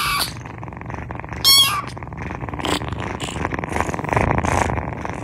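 A kitten meowing: a high-pitched meow ending just after the start and a second short meow about a second and a half in. It is followed by a close, rough purr-like rumble as the cat is right at the microphone.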